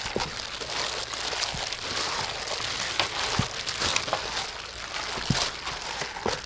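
Gloved hands kneading and turning raw chicken wings in thick wet batter in a metal bowl: wet squelching and the crinkle of thin plastic gloves, with many small irregular clicks.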